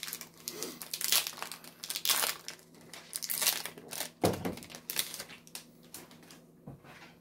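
Foil Magic: The Gathering booster-pack wrappers crinkling as packs are handled and torn open: about six sharp, crackly rustles spread through, a second or so apart.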